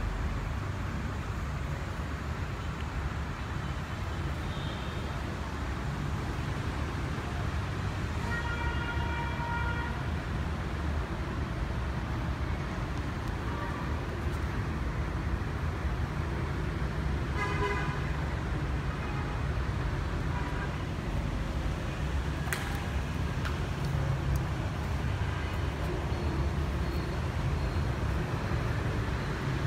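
Steady low vehicle rumble, with a car horn tooting briefly twice, once about a third of the way in and again past the middle, and a single sharp click a little later.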